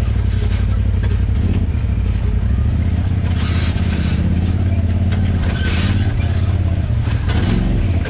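Side-by-side UTV engine running steadily as it drives down a rough, washed-out trail, with occasional knocks and rattles.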